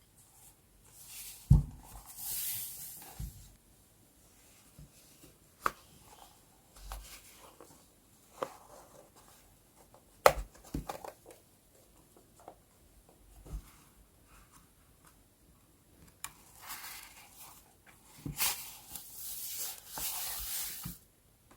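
Paper and sticker handling during journal scrapbooking: short, crisp paper rustles and slides, with a few sharp taps and clicks in between. The longest rustling comes near the end.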